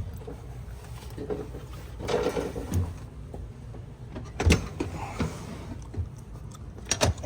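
Handling noises over a steady low hum: a scrape about two seconds in, then several sharp knocks and clatters, the loudest about four and a half seconds in and again near the end.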